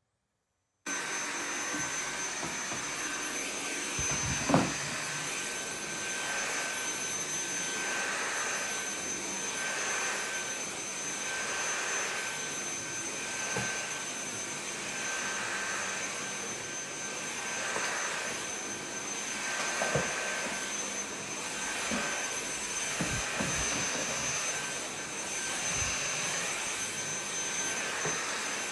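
Cordless stick vacuum cleaner running, its motor a steady high whine with a rush of air. It starts suddenly about a second in and swells and fades as the head is pushed back and forth. A few clicks and knocks are heard as it picks up spilled resin diamond drills, the loudest about four seconds in.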